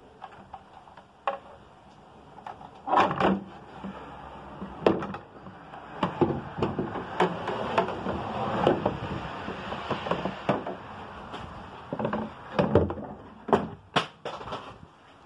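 Irregular knocks, clicks and scraping as a minivan's wiper cowl assembly is worked loose and pulled out of the engine bay, with rustling handling in between. The loudest knocks come about three seconds in and again near the end.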